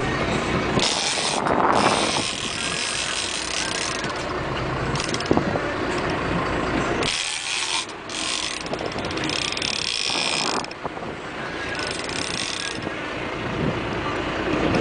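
Big-game trolling reel ratcheting in repeated bursts of a second or two while a fish is fought on the line, over the steady low rumble of a boat engine.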